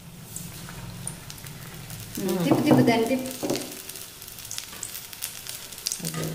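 Batter-coated ajwain leaves (vamaku bajji) deep-frying in hot oil in a steel kadai: a steady sizzle with scattered small pops, while a wire skimmer turns them. A brief voice sound comes about two and a half seconds in and is the loudest moment.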